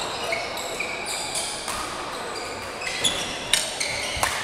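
Badminton rally: court shoes squeak repeatedly on the floor as players move, and rackets strike the shuttlecock with sharp hits about three seconds in, half a second later, and near the end.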